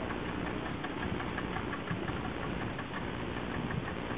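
Boat engine running steadily, with an even, regular knock.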